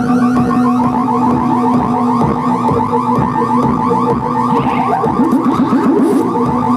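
Live electronic music from a bank of homemade oscillators: steady droning tones with a rapidly pulsing, alarm-like warble over a regular beat. About a second in, the pulsing tone steps down in pitch.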